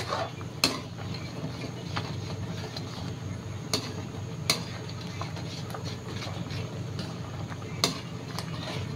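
Fish sarsiado sauce simmering in a pan under a steady low hum, while a metal spatula stirs it and taps sharply against the pan a few times.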